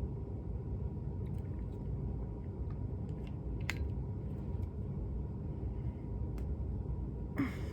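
Steady low background rumble, with a few faint clicks and taps of a plastic soda bottle and its cap being handled, and a brief louder rustle near the end.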